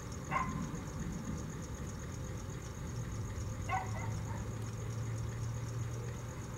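A dog barks twice, about three seconds apart, over a steady low hum and a faint, steady high whine.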